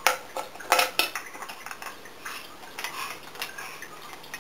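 Wooden puzzle pieces clacking against each other as a toddler rummages through a pile of them. A few sharp clacks come in the first second, then softer, scattered knocks.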